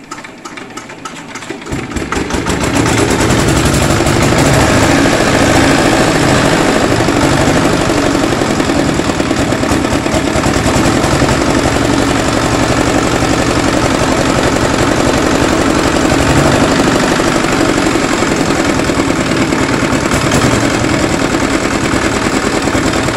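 Small single-cylinder engine pull-started: after a few seconds of starter clicks it catches about two seconds in, builds up, and then runs steadily with a fast, even beat.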